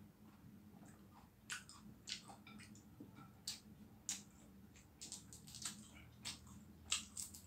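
Faint, irregular small clicks and crackles of shell being picked off a boiled balut egg by hand, mixed with closed-mouth chewing.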